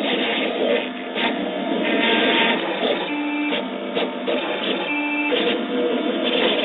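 Stepper motors of a computer-controlled cutting and engraving machine driving its head back and forth: a busy mechanical whirr with short whining tones that come and go as the head changes moves.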